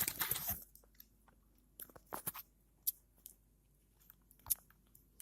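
Irregular small clicks and crackles, with a short rustling burst at the start and a few sharp taps spread through the rest.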